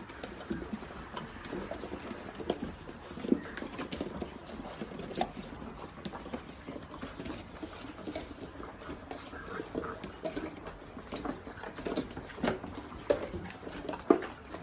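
A litter of Labrador retriever puppies eating from steel bowls in raised feeders: irregular clicks and clinks of kibble and bowls, mixed with the puppies' eating noises.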